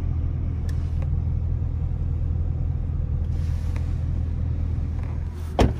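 Steady low rumble of a Corvette driving, engine and road noise heard from inside the cabin. A single sharp thump comes near the end.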